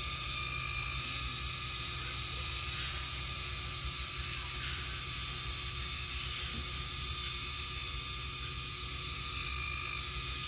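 A steady, unidentified hissing drone from a tree, with a low rumble underneath and short brighter swells about half a second in and again near the end.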